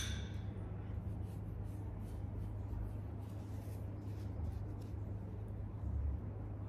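Quiet room tone with a steady low hum and faint, soft rustling or handling noises.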